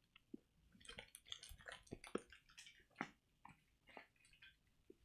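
Faint, irregular crackling of a thin plastic candy wrapper being handled in the fingers.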